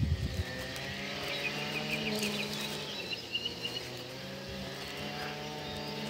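A distant engine drones steadily with a low, even hum. A brief gust of wind hits the microphone at the very start, and a bird chirps a few times about two seconds in.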